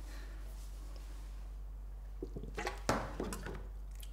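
A long rubber hose pipe being handled while a siphon is set up: a few light knocks and taps about halfway through, over a steady low hum.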